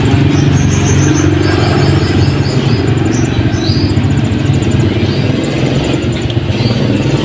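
An engine running steadily and loud, with a low even hum, close to the microphone.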